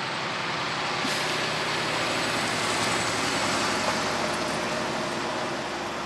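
Heavy prime-mover truck hauling an oversize mobile crane on a multi-axle low-loader, its diesel engine running under load with steady road and tyre noise as it drives along.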